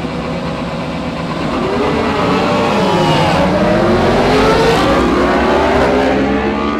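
A grid of racing superbikes launching from the start, many engines revving hard together, their pitches rising and falling over one another. The sound builds to a peak about four seconds in, then eases slightly as the pack pulls away.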